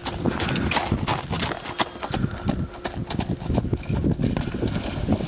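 Hoofbeats of a ridden horse moving over grass, a quick, irregular series of thuds.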